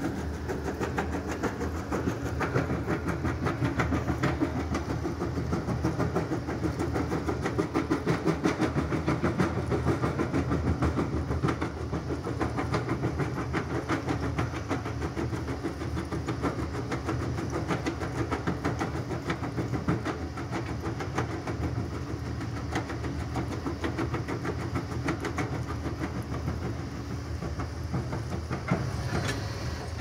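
Kobelco crawler excavator's diesel engine running steadily under load while its crusher bucket breaks stone, with a dense, continuous clatter and crunch of rock being crushed and falling out.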